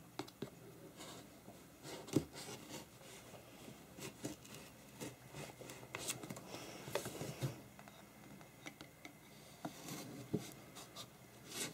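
Faint scraping, rubbing and light tapping of hands handling a cardboard box, with a kitchen knife cutting into the box's edge near the end.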